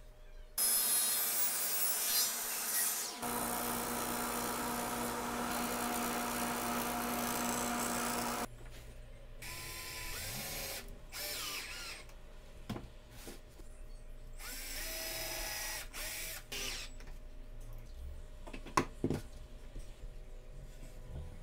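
Power tools in a workshop: a power tool runs steadily for about eight seconds, then a cordless drill whirs in short spurts, its pitch rising and falling as it spins up and stops while driving screws into plywood, with a couple of sharp knocks near the end.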